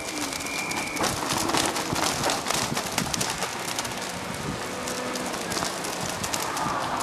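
Rally car approaching at speed along the stage, its engine growing louder under a dense crackle of pops. A short, steady high whistle sounds for about a second at the start.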